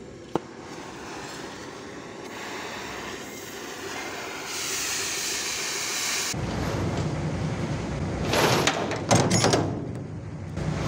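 A low mechanical rumble that comes in suddenly about six seconds in, with a steady hiss just before it and loud rattling clatter a couple of seconds later.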